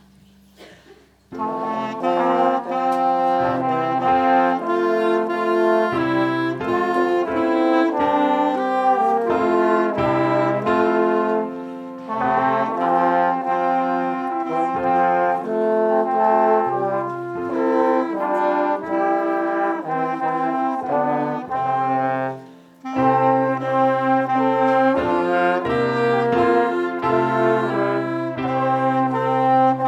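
Instrumental music with a horn-like lead over a bass line starts about a second in and plays on. It thins briefly near the middle and pauses for a moment about three-quarters of the way through before coming back in.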